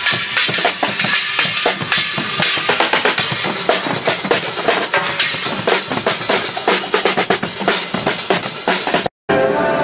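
A carnival Guggenmusik band's drummers pounding out a steady beat on drum kits: snare, toms, bass drum and cymbals. The drumming breaks off abruptly near the end.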